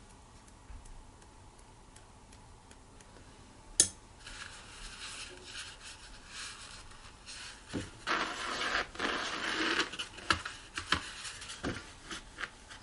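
Paper towel rustling as it is handled and pressed onto watercolour paper, loudest for a couple of seconds just past the middle, with small scattered clicks. A single sharp tap about four seconds in, as a paintbrush is set down on the table.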